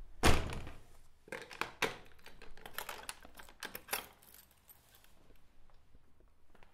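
A run of crisp clicks and crackles close to the microphone, with one loud crack just after the start and scattered clusters that die away after about four seconds.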